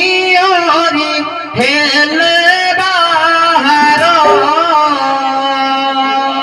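A man singing an Odia sankirtan (devotional kirtan) melody into a microphone, amplified, over steady held harmonium notes. His line breaks off briefly and a new phrase starts about a second and a half in.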